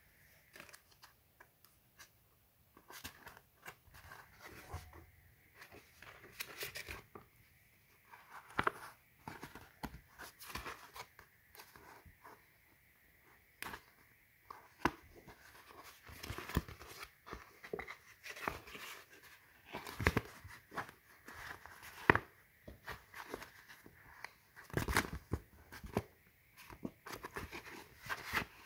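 Thin scored polypropylene sheet being creased by hand along its score lines: irregular crackles, clicks and rustles as the plastic is bent and pressed into mountain folds, sparse at first and louder and busier from about halfway.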